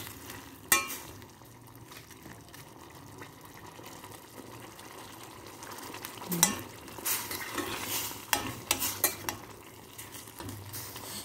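A metal ladle stirring sautéed squid in a stainless steel pot as it reheats, with sharp clinks of the ladle against the pot about a second in and in a run from about six to nine and a half seconds, over a soft, steady sizzle.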